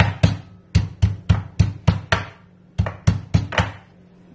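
Fresh ginger being pounded with a stone pestle in a stone mortar: dull knocks at about four a second, a short pause about two seconds in, then four more strikes.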